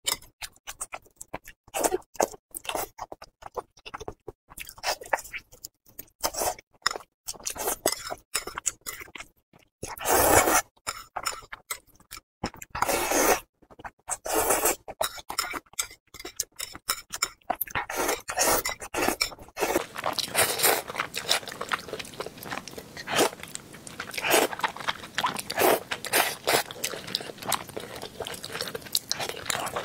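Close-miked eating: wet chewing and crunchy bites, with a couple of longer, louder slurps of noodles about halfway through.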